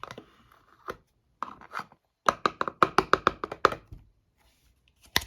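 Knife scraping a solid Dove Men+Care deodorant stick: a few scattered scrapes, then a quick run of about ten short strokes in a second and a half.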